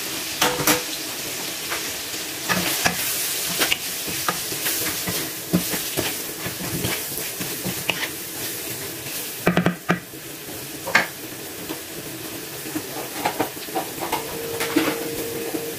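Chicken pieces in curry powder sizzling as they fry in a nonstick wok. Through the sizzle come repeated clicks and scrapes of the food being stirred against the pan.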